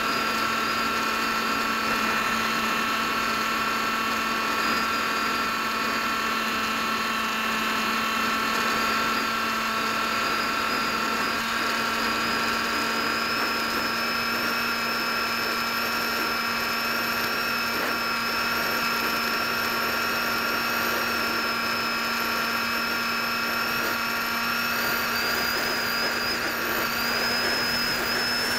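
Electric motor and propeller of an AXN foam RC plane in flight, heard from its onboard camera: a steady motor whine with a constant low hum over a rush of noise, the highest whine wavering slightly a few seconds before the end.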